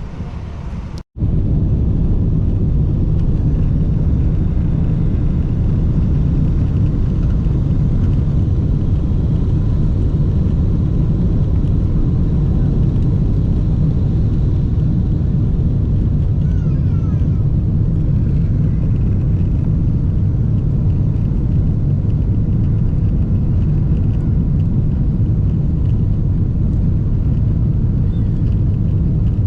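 Jet airliner's engines and airflow heard inside the passenger cabin: a loud, steady low rumble that starts abruptly after a brief silence about a second in.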